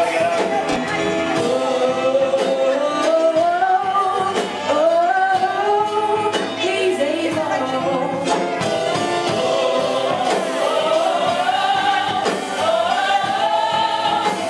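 Gospel music with singing: sung melody lines that slide between notes over sustained accompaniment.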